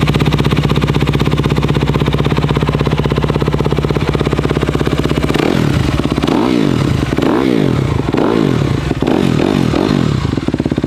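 Honda CRF250 dirt bike's single-cylinder four-stroke engine, fitted with a Yoshimura exhaust, idling steadily just after starting. About halfway through it is revved in a series of quick throttle blips, each rising and falling, then drops back to idle near the end.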